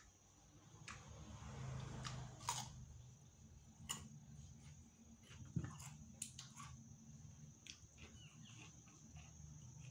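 Faint eating sounds: a man chewing a mouthful and biting fresh cucumber, with scattered sharp clicks and crunches, the loudest a few seconds in, over a steady low hum.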